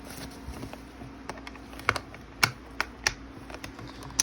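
Irregular sharp clicks and taps of hard plastic parts being handled during a toy repair, about half a dozen, the loudest about halfway through, over a faint steady hum.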